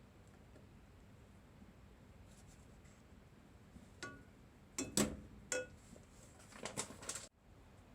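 Kitchenware being handled: a few short clinks and knocks, some with a brief ring, the loudest about five seconds in and a small cluster near the end, where the sound cuts off abruptly.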